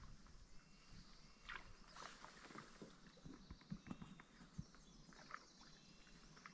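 Near silence on calm water, with faint paddle strokes and drips from a cedar-strip canoe and a few small scattered knocks.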